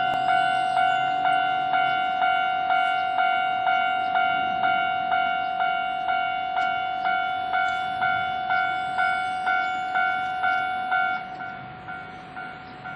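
Japanese railway level crossing warning bell ringing its repeated 'kan-kan' strikes, about two a second, one ringing tone with overtones: the signal that a train is coming through. About eleven seconds in it weakens, and the strikes die away toward the end.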